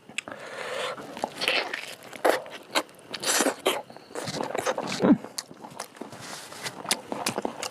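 Someone eating pork curry: wet chewing and smacking with irregular clicks and crunches.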